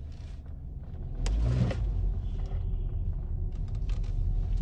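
Low rumble of a moving car heard from inside the cabin, growing louder about a second in with a sharp click and a short rush of noise, then holding steady.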